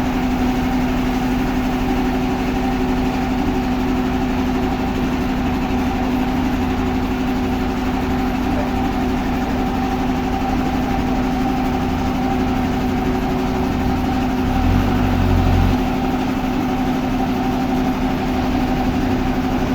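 A steady engine-like machine hum, running evenly as if idling, with a brief low surge about fifteen seconds in.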